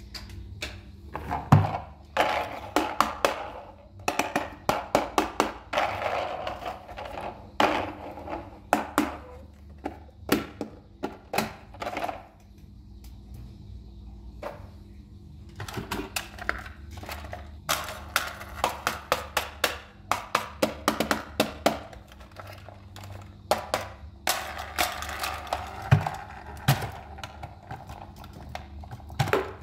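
Hard plastic toy trains handled and set down in a cardboard box: a string of clacks and knocks with scraping between them, in bursts with short lulls.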